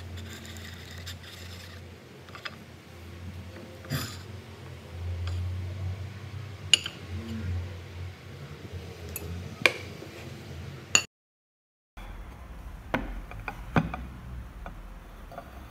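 Knife blade scraping around the inside of a ceramic ramekin to loosen a baked custard, with sharp clinks of metal on ceramic a few seconds apart over a low steady hum. The sound drops out for about a second two-thirds through, then the ramekin clicks and knocks as it is handled upside down on the table.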